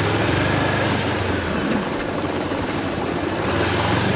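Honda CB400X's parallel-twin engine running steadily while the motorcycle is ridden, with wind rushing over the microphone.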